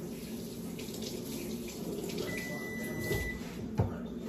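Kitchen faucet running into a sink, a steady rush of water. A faint thin high tone sounds for about a second midway, and there is a single knock near the end.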